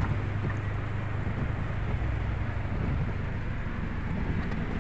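Steady car cabin noise while driving in heavy rain: engine hum and the rush of tyres on the wet road.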